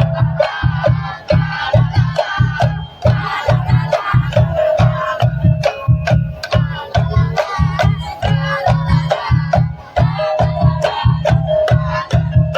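Tongtek ensemble playing: bamboo kentongan knocks and drums beating a steady rhythm, about two deep drum hits a second, with a wavering melody over them.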